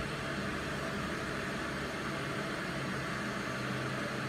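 Holztek PRO-R4F four-head CNC nesting router running an automatic job, a steady machine hum with a low tone and a hiss over it.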